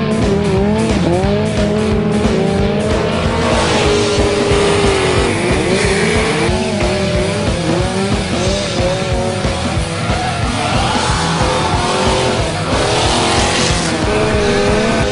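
A drifting car's engine revving up and down, its tyres squealing in a couple of spells, over background music with a steady beat.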